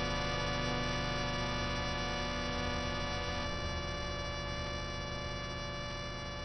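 Background music: a long held chord, slowly fading.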